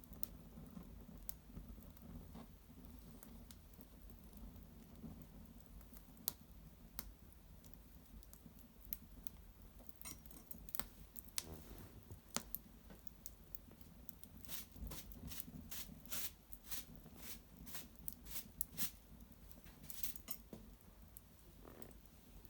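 Small fire of dried maple brushwood crackling in an irori hearth: scattered sharp pops and snaps, sparse at first and coming thicker in the second half.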